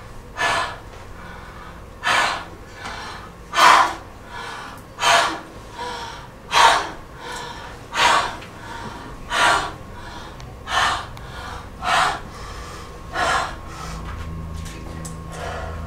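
A woman's sharp, noisy gasping breaths close to a microphone, about ten of them at an even pace of roughly one every second and a half, stopping shortly before the end.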